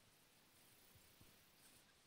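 Near silence: a faint steady hiss with a few soft, low thumps about a second in.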